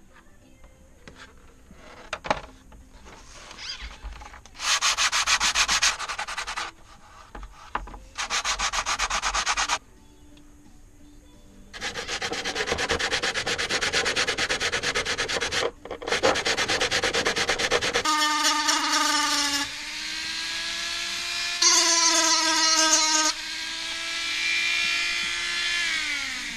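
Hand sanding with sandpaper on a block, in bursts of rapid back-and-forth rubbing lasting a few seconds each, flattening a fibreglass glider wing's leading-edge repair. About two-thirds of the way in, a flex-shaft rotary tool with a cutting disc starts and runs with a steady whine whose pitch shifts, louder for a moment and easing down near the end.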